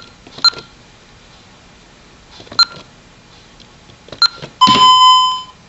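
Honeywell Vista 20P alarm keypad beeping as its keys are pressed: four short key beeps spaced out over a few seconds, then one longer, louder beep of about a second near the end, after the last digit is entered.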